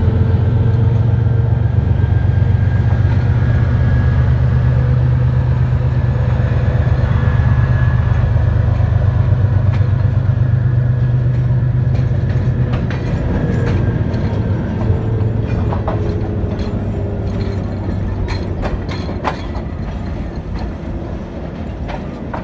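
Diesel locomotive engine running with a loud, deep steady hum that fades away about halfway through, followed by scattered sharp clicks of train wheels over the rails as the passenger coaches roll past.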